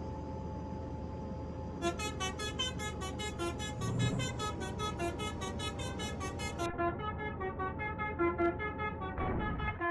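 Telolet Basuri musical air horn on a bus playing a quick melody of short, bright notes, starting about two seconds in over a steady hum. A brief rushing sound comes near the end.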